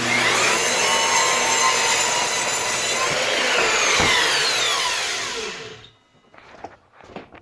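Power saw cutting through the end of a hardwood board to square it. A loud, steady cutting noise whose pitch sweeps downward in the second half, ending abruptly about six seconds in.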